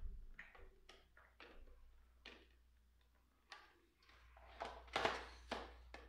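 Scattered light clicks and taps of a screwdriver and small parts against the plastic base of a Cuisinart DCG-20N being taken apart, with a louder flurry of clicks about five seconds in.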